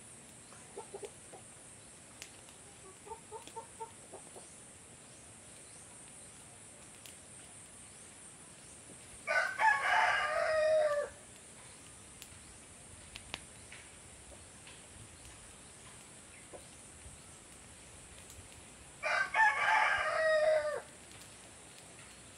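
A rooster crows twice, about ten seconds apart, each crow lasting about two seconds and dropping in pitch at the end. A few soft clucks come in the first few seconds.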